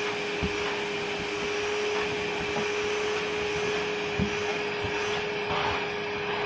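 A Ramtons wet and dry vacuum cleaner's 1500-watt motor running steadily with a constant whine, with a few light knocks.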